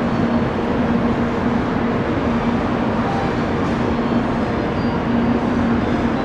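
N700-series Shinkansen train pulling slowly into the platform: a steady rumble with a low hum that fades in and out.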